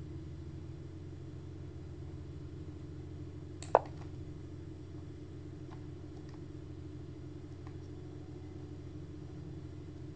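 Steady low hum, with a single sharp click just under four seconds in and a few faint ticks after it.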